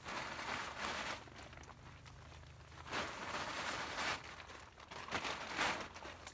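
Plastic poly tarp rustling and crinkling as it is handled and swung, in several separate bursts of crinkling.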